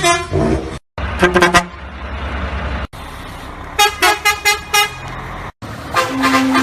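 Musical vehicle horns playing quick runs of short pitched notes in little tunes, in several stretches that cut off abruptly. Between them there is a stretch of traffic rumble, and about six seconds in a single horn tone starts and holds steady.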